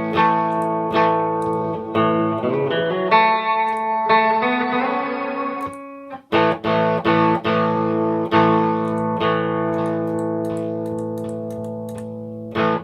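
Electric guitar played through a Matthews Effects Astronomer V2 pedal: chords strummed and left to ring, with some notes gliding in pitch in the middle. The sound cuts out briefly about six seconds in, then several quick strums follow and ring down slowly.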